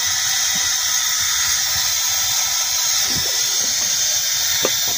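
Steady hiss at the dump truck's hydraulic hoist control valve, with hydraulic oil flowing through the opened valve as the dump box lowers.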